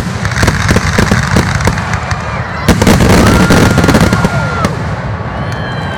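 Fireworks bursting in a dense barrage, many sharp bangs in quick succession with crackling between them, the loudest bang about two and a half seconds in. Near the end the crowd begins to whistle and cheer.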